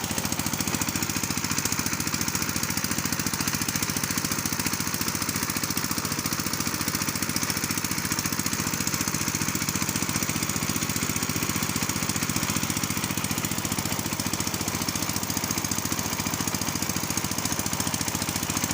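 A small engine running steadily with a fast, even knocking beat that does not change.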